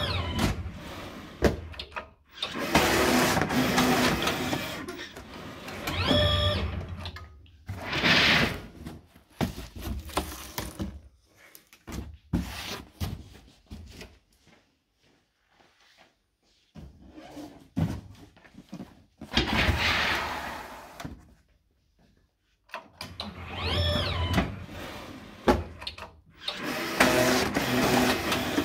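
Semi-automatic cardboard-box opening machine running through repeated cutting cycles, its blade unit cutting into corrugated cardboard boxes for a hinge cut. Each cycle brings a motor whine that rises and falls in pitch and rushing noise from the cut, with short quiet pauses between boxes.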